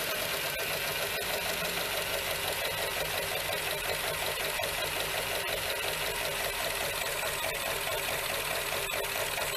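Carbureted Ford V8 running at a steady idle with an even, rhythmic beat, freshly started after sitting about two years with a splash of gas down the carb. It sounds nice.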